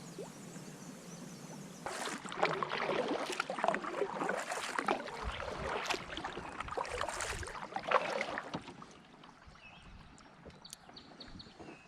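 Water splashing and knocking around a kayak: irregular splashes and small knocks that start about two seconds in and die down near the end.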